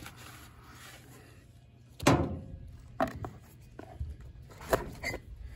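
A rag rubbing on the steel knife seat of a chipper drum for about a second, then a few sharp knocks of hard objects being handled, the loudest about two seconds in.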